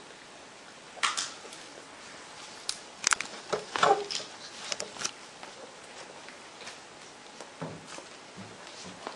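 Scattered footsteps, knocks and shuffles as performers move about a stage, most of them between about one and five seconds in, over faint room hiss.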